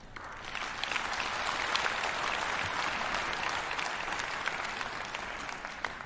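Concert-hall audience applauding, breaking out right at the start, swelling over the first two seconds, then tapering off toward the end.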